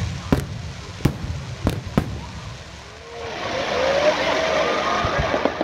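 Fireworks going off: four sharp bangs in the first two seconds. From about three seconds in, a louder wash of crowd voices and shouting builds up.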